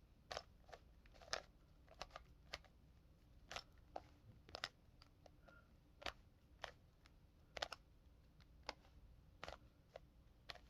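Plastic Rubik's Cube layers being turned by hand: faint, short clicks at irregular intervals, roughly one every second, from a stiff cube that is hard to turn.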